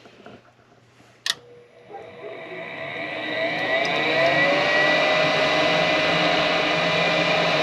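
A sharp click, then a gas furnace's draft inducer motor starting and spinning up, its whine rising in pitch for about three seconds before settling into a steady run.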